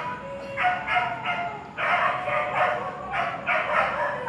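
Rapid runs of short, pitched animal calls, about three a second, with a brief pause a little under two seconds in.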